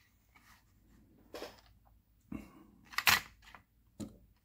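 A few short sharp clicks and knocks from handling the picked-open ASSA Twin 6000 padlock and tools as its disassembly begins, the loudest a double click about three seconds in.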